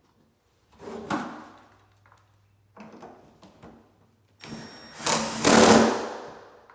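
Cordless drill driving the refrigerator hinge-bracket screws in short runs, the longest and loudest about five seconds in.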